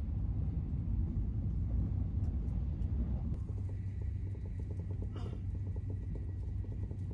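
Steady running noise inside a Shinkansen bullet train carriage at speed: a low rumble with a soft hiss above it.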